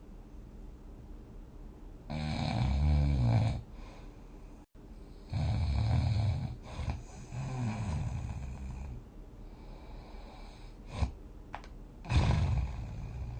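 A person snoring in a deep, rattling way. Snores come about two seconds in, again from about five to nine seconds, and near the end, with a short sharp sound around eleven seconds.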